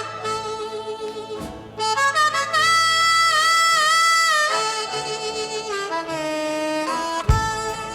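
Instrumental blues intro with a wind-instrument lead melody over a backing band; drum beats come in near the end.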